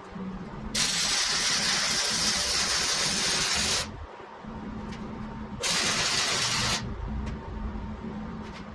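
Arc welding in two bursts: a steady hiss of about three seconds, then another of about a second, with a low steady hum running underneath.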